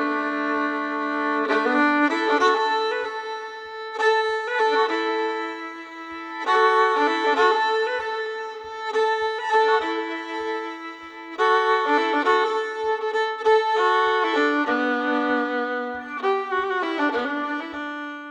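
Intro music: a fiddle tune of long held notes, often two at once, over a light steady beat.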